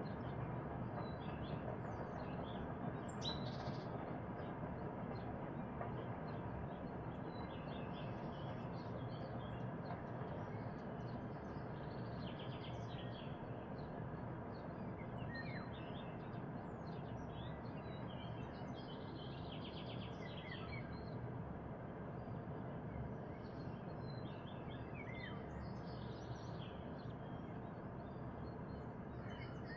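Songbirds chirping and singing in short, scattered phrases over a steady low background rumble.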